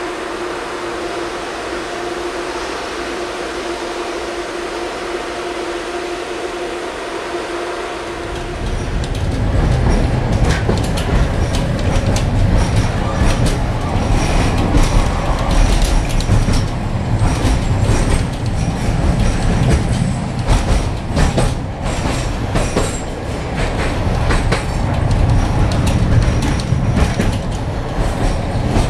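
A steady electrical hum inside a Tatra T4D tram car. About 8 seconds in it gives way to the tram running along the track: a loud rumble of steel wheels on rail with frequent clicks and knocks over rail joints.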